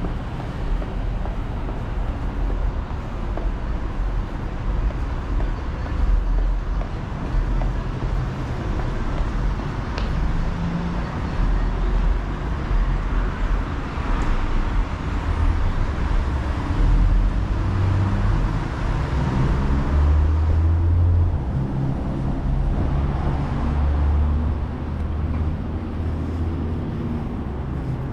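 Steady outdoor city ambience: a low rumble of road traffic, heaviest in the second half.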